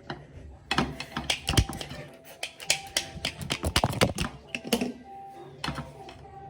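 A quick, irregular run of clicks and knocks from kitchen utensils and dishes being handled, starting about a second in and thinning out near the end, over background music.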